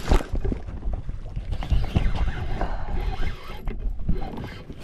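Fishing reel being cranked while fighting a just-hooked fish, with irregular mechanical clicking and knocking.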